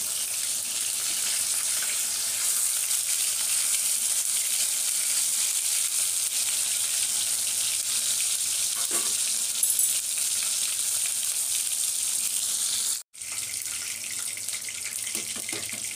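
Masala-coated Indian mackerel (bangda) sizzling steadily as it shallow-fries in oil in a pan. The sizzle breaks off for an instant about thirteen seconds in, then carries on softer.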